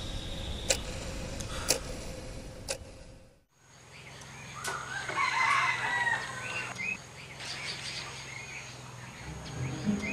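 Sharp ticks about once a second, then, after a brief silence, a rooster crowing.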